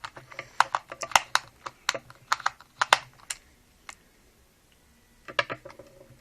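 Rapid, irregular plastic clicks and taps from handling a reassembled PS3 DualShock 3 controller, with a short final cluster near the end.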